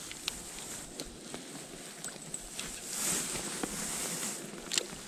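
Outdoor ambience at a fishing spot: a steady rustling hiss that swells briefly about three seconds in, with a few scattered light clicks and knocks.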